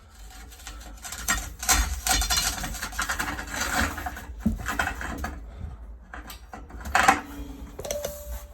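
Small metal tools clattering and scraping as they are rummaged and handled, with irregular rattles and clicks and one louder knock about seven seconds in.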